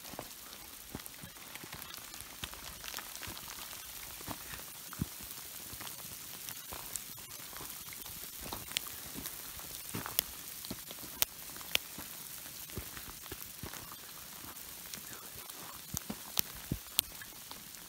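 Sleet falling: a steady hiss with irregular sharp ticks as pellets strike close to the microphone.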